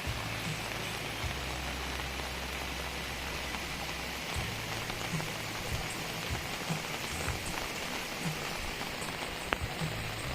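Heavy rain falling steadily, with a few louder single drops standing out, over a low hum that shifts pitch now and then.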